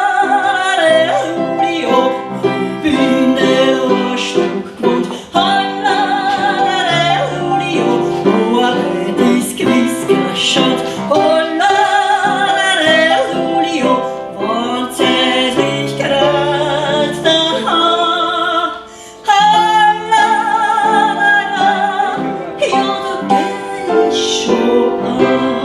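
A Wienerlied (Viennese song) sung with strong vibrato over string accompaniment, including a guitar. There is a short break in the music about three-quarters of the way through.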